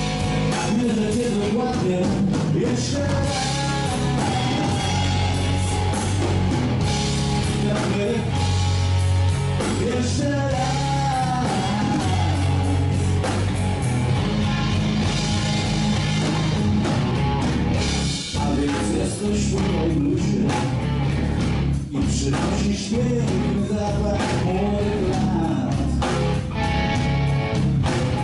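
A blues-rock band playing live: electric guitar, electric bass and drum kit.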